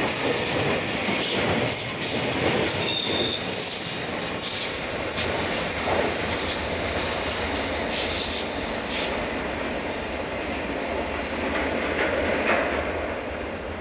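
Loaded railway tank wagons of a freight train rolling past on curved track: steady wheel-and-rail noise with clicking over the rail joints and a short wheel squeal about three seconds in. The sound fades a little near the end as the last wagon moves away.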